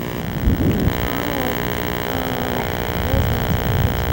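A steady electrical hum of many even tones, with a low, uneven rumble of wind buffeting the camcorder microphone on an open rooftop. The rumble swells about half a second in and again near the end.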